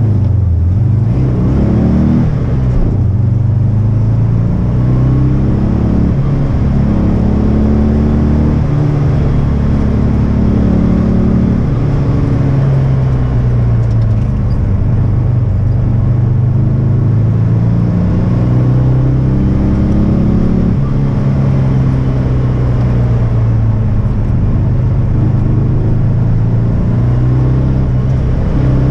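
1971 VW Beetle's 1600 dual-port air-cooled flat-four engine heard from inside the cabin, pulling hard through an autocross run. The engine note climbs and drops again every few seconds as the car accelerates, brakes and changes gear between cones.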